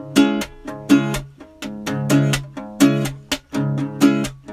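Background music: an acoustic guitar playing chords in a steady rhythm.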